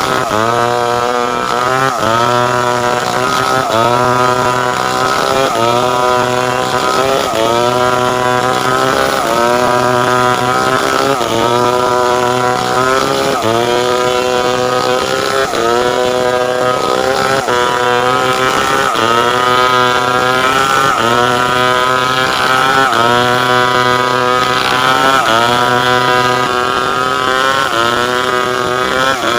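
Two-stroke chainsaw running at high revs while ripping timber into boards, its pitch sagging and climbing again in a steady cycle a little slower than once a second as the cut loads and eases.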